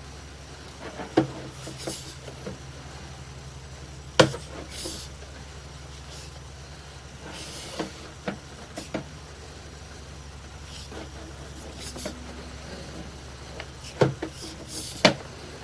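Sewer inspection camera and its push cable being pulled back through the pipe: irregular sharp clicks and knocks, about eight of them, over a steady low hum.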